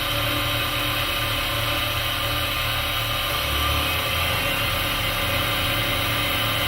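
DIY CNC milling machine running steadily as its cutter mills around the profile of a cast aluminium part, in climb milling mode.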